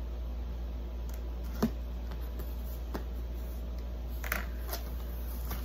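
Handling of a cardboard gift box, a card and wrapping paper: a few scattered rustles and clicks, the sharpest about one and a half seconds in, over a steady low hum.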